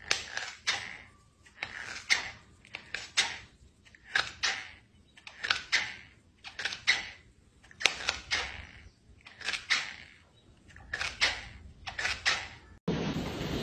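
A cat crunching small dry bits of food, with a crisp crunch about twice a second, often in quick pairs and with short pauses between them.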